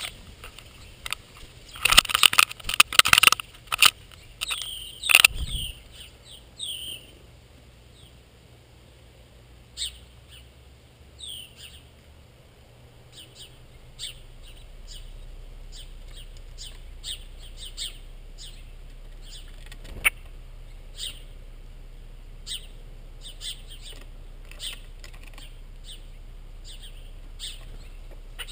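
Small birds chirping at a feeder: short, high chirps repeating roughly twice a second through most of the stretch. A burst of loud sharp clattering knocks about two seconds in, and another about five seconds in.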